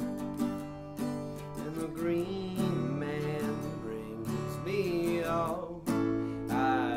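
Acoustic guitar strumming steady chords in a song, with a melody line bending up and down in pitch over it.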